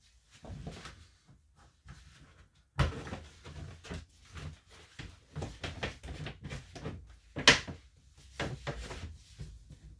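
Parts being handled in a plastic storage tote: irregular clunks and rattles, with two sharp knocks, about three seconds in and again about seven and a half seconds in.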